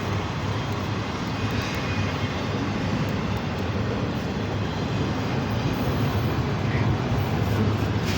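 BNSF manifest freight train rolling by with a steady, unbroken rumble.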